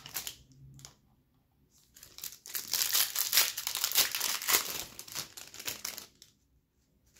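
Foil wrapper of a Topps Pro Debut baseball card pack crinkling and tearing as it is ripped open, a dense crackle lasting about three and a half seconds. A short rustle comes first, as the pack is pulled from the box.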